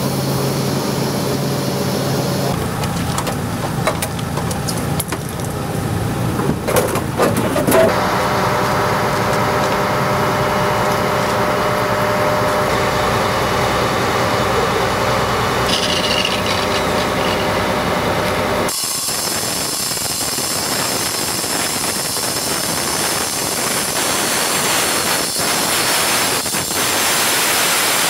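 Steady engine and machinery hum for the first part. About two-thirds of the way in it gives way to an angle grinder's cutting disc grinding through a fallen metal traffic-light pole, a continuous high hissing grind.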